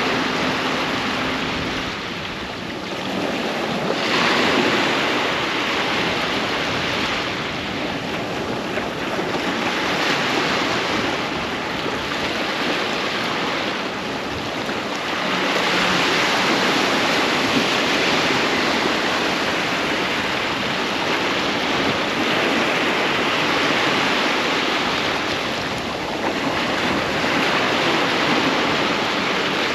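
Waves breaking and washing on a beach, a continuous surf rush that swells and eases every few seconds, with some wind on the microphone.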